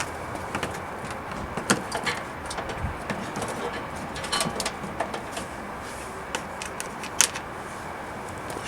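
Irregular small clicks and knocks from hands working on the car, over a steady hiss; the sharpest come about two seconds in and about seven seconds in.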